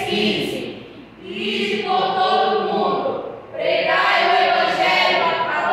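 Several voices in unison, in phrases broken by short pauses about a second and three and a half seconds in.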